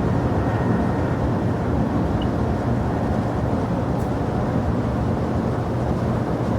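Jet airliner engines running with a steady rumble.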